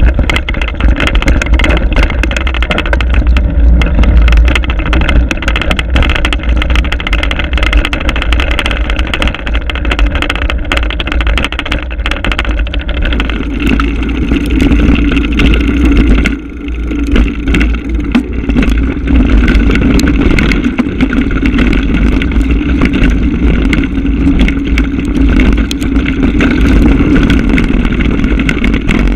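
Mountain bike riding down a trail: tyres rolling over dirt and rock with constant rattling knocks, and heavy wind rumble on a GoPro microphone. Briefly quieter about sixteen seconds in.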